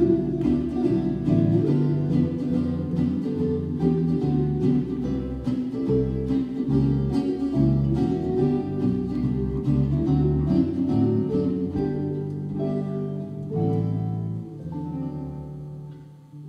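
Gypsy jazz group of acoustic guitars and bass playing a tune, with an even strummed rhythm under the melody. The music dies away near the end.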